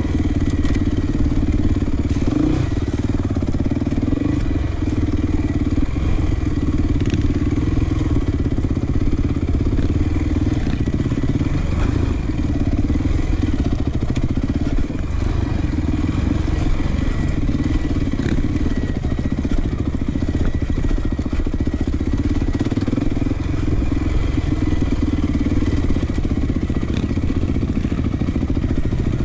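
Off-road motorcycle engine running steadily, its revs rising and falling a little.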